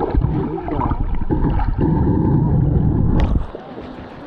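Water sloshing and gurgling in the shallow surf under heavy wind buffeting on the microphone, cutting off suddenly about three and a half seconds in.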